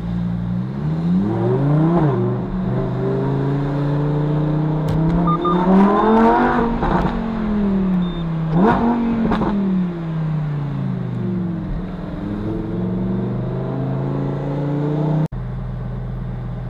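Lamborghini Huracán STO's naturally aspirated V10, heard from inside the cabin, accelerating hard: the revs climb and drop several times as it pulls through the gears, then ease off. About 15 seconds in the sound cuts off abruptly and a lower, steady engine note follows.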